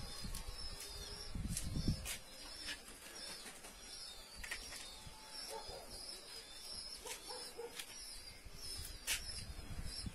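Faint outdoor ambience with scattered sharp clicks, a brief low rumble about a second and a half in, and faint short calls in the middle.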